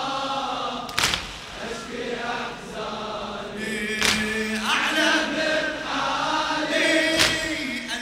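A crowd of men chanting a Shia latmiya lament in unison. Three times, about three seconds apart, their chests are struck together in a single loud slap.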